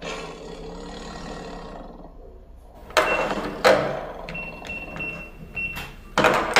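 Music fading out, then two loud clacks at the front door and a run of short, high, same-pitched beeps from a digital door lock's keypad as the code is entered. A loud clatter near the end as the lock releases and the door opens.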